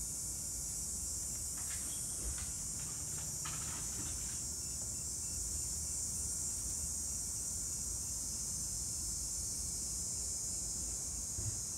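Steady high-pitched insect chorus, with a quick run of short ticks about two to four seconds in.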